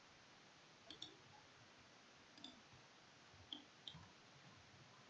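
Faint computer mouse clicks, about five, in pairs about a second in and near four seconds with one between, over a low steady hiss.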